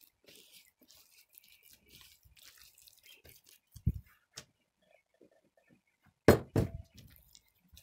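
Silicone spatula stirring flour into a soft yeast dough in a glass bowl: faint scraping and mixing sounds, with a dull thump about four seconds in and two loud, short knocks a little after six seconds.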